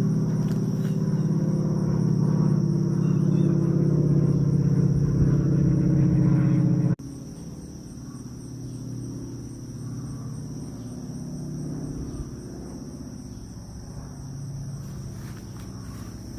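Propeller warbird's piston engine droning steadily overhead, loud for about seven seconds, then cutting abruptly to a fainter drone. A steady high insect buzz, like crickets, runs underneath.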